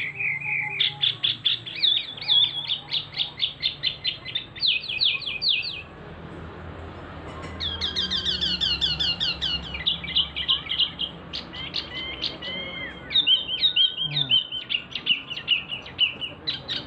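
Male wambi mini Jawa, a small caged songbird, singing loud and continuously: rapid runs of sharp, high repeated notes, each a quick pitch sweep. There is a short pause about six seconds in, then a rich run of notes resumes.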